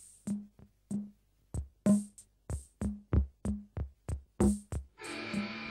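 Background music: a drum-machine beat of separate, unevenly spaced hits, joined about five seconds in by a dense, held chord.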